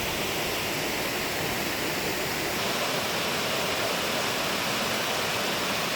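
Steady rushing of a waterfall: an even, continuous hiss of falling water.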